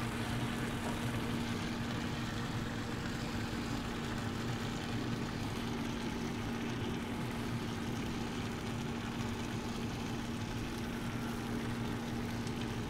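Steady mechanical hum with one constant low tone, from the running Yoder YS640 pellet smoker's fan.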